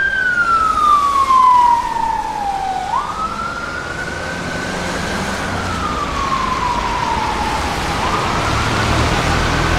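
Police car siren on a slow wail: the tone falls for about three seconds, jumps back up and climbs, then falls again, over a wash of traffic noise. A low engine rumble builds near the end.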